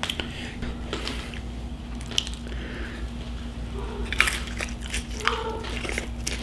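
Close-miked eating sounds: wet chewing and biting, with crackly crunches from crisp food, clustered a little after four seconds in. A steady low hum sits underneath.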